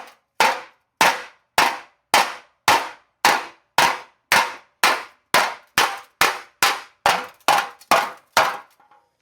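Steady hammer blows on a steel automatic-transmission pan, about two a second with a short metallic ring after each, knocking the pan back into shape so its gasket will seal.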